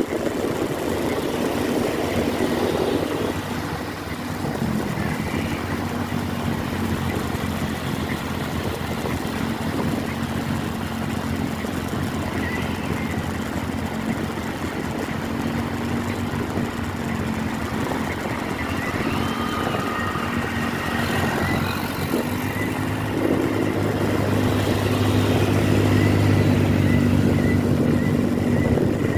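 Road traffic: a vehicle engine running steadily over road noise, growing louder about three-quarters of the way through.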